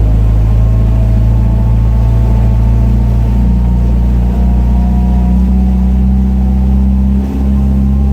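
A vehicle's engine running steadily, heard as a loud, constant low hum, with a faint higher whine that drifts slowly in pitch.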